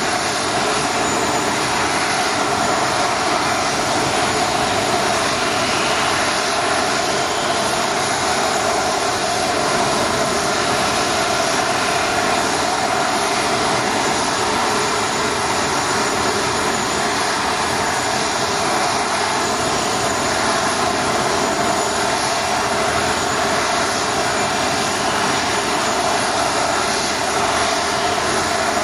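Airbus A320 jet engines running at low taxi power as the airliner lines up on the runway, heard from a distance as a steady hiss and hum that neither rises nor falls.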